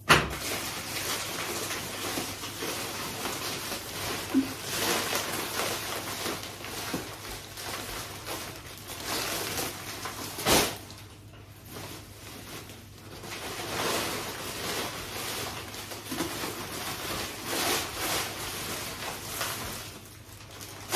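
Plastic sacks and carrier bags rustling and crinkling as they are handled and packets are pulled out of them, in uneven waves, with a sharp crackle right at the start and another about ten and a half seconds in.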